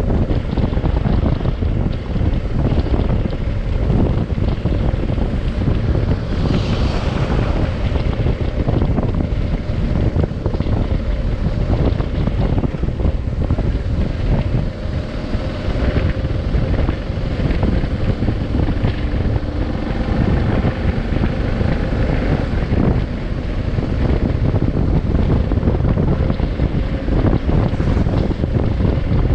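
Heavy, steady wind buffeting on an action camera's microphone on a moving adventure motorcycle, with the bike's engine running under it as a faint steady hum.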